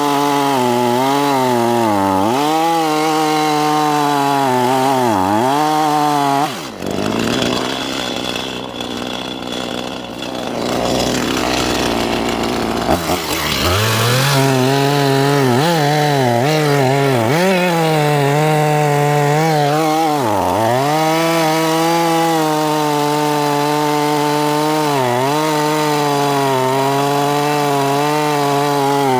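Gas chainsaw running at high speed and cutting logs, its pitch dipping briefly and recovering again and again as the chain bites into the wood. About six seconds in, the steady engine note gives way for about seven seconds to a quieter, rougher noise, then returns.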